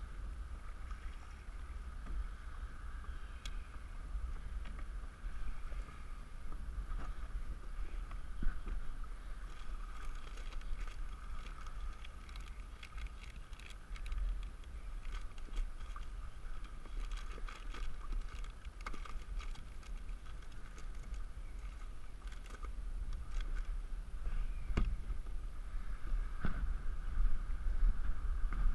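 Wind rumbling on the microphone and small waves lapping against a plastic kayak hull. Around the middle comes a run of clicks and rustles as a bag is handled at the open hatch.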